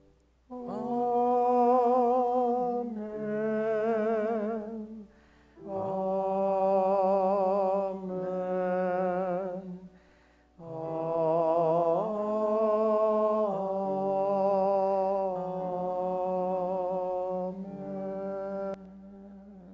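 A choral Amen sung as three Amens, each a pair or run of long held notes sung with clear vibrato. The third Amen is drawn out longest over several notes and ends about a second before the close.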